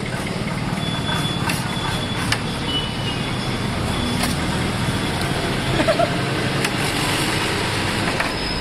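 Steady street traffic noise of engines and vehicles, with a few sharp clicks scattered through it.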